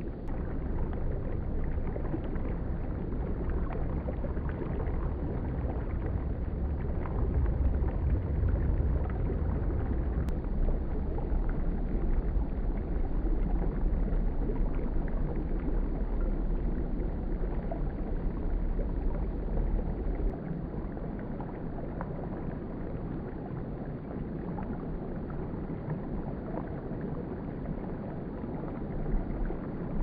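Shallow brook water running over rocks and fallen branches: a steady, muffled rushing with a strong low rumble. It swells a little about 7 seconds in and eases after about 20 seconds.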